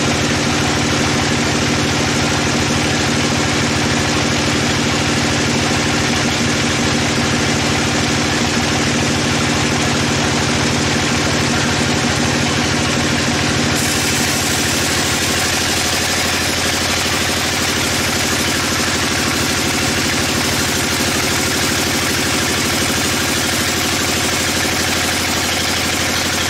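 Band sawmill running steadily, its blade cutting along a teak log, with a steady machine drone underneath. The sound changes about halfway through, turning hissier with a shifted pitch.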